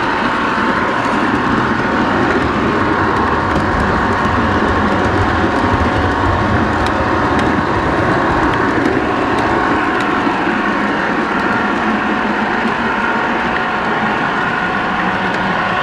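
O-gauge model train rolling along its track, heard from on board: a steady rumble of wheels on rail with a constant motor whine and a few faint ticks.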